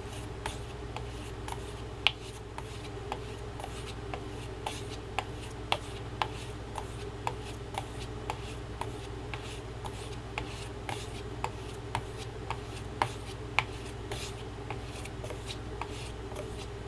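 A T10 carbon-steel Half Hawk knife blade being stropped on plain leather, the final finishing stage after a compound-pasted strop. It makes a short tick about twice a second, one per stroke, over a soft rubbing.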